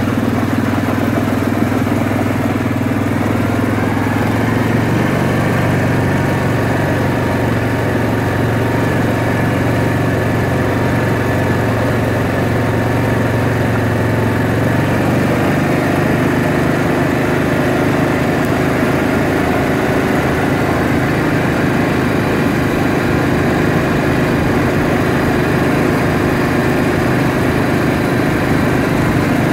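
ATV engine running steadily under way, its note shifting about halfway through.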